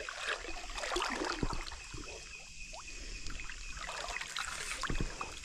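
Water splashing and trickling in small, irregular splashes and knocks, as of something moving through shallow river water.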